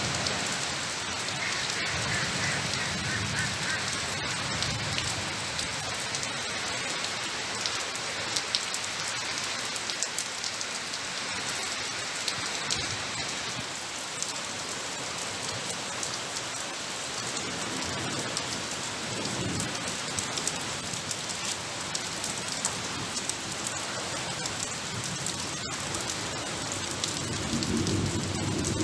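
Steady rain falling and pattering on surfaces, with sharp drop hits throughout. Low rumbles swell and fade now and then, strongest near the end.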